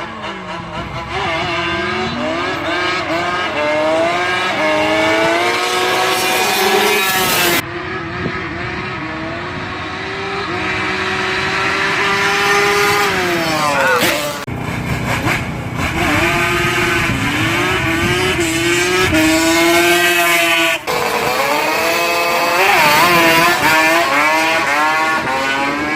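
421 big-bore Yamaha Banshee two-stroke twin engine revving hard under full throttle. The pitch climbs again and again, breaking off sharply several times, as in gear changes on a drag pass.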